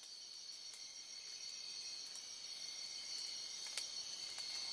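Insect chorus in a forest: a steady, high-pitched trilling drone that slowly grows louder, with a few faint short ticks near the end.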